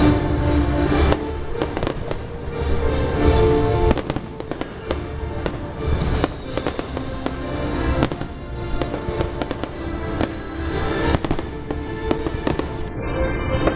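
Fireworks bursting and crackling, many sharp bangs in quick succession, with show music playing under them.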